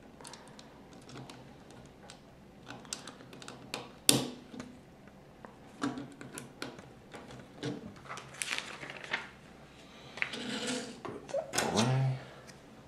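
Plastic Lego bricks clicking and snapping as pieces are pressed onto a small model and loose pieces are handled on a wooden tabletop, with one sharper snap about four seconds in and a stretch of rattling and rustling a little later.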